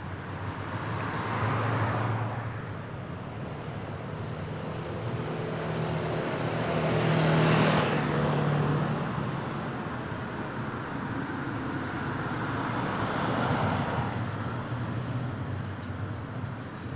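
Cars passing by on a street, one after another: three passes that swell and fade, the loudest in the middle with an engine hum and a falling hiss as it goes by, over a steady background of traffic.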